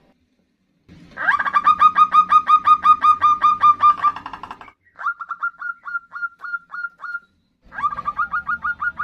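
Zebra doves giving the rapid staccato 'nutut' call, the female call used as a lure for males: three runs of short, quick notes, about six a second. The middle run is shorter and a little higher, and the last run is still going at the end.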